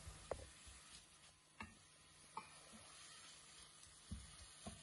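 Sliced leeks faintly sizzling in oil in a stainless steel pot while a wooden spoon stirs them, knocking against the pot five times.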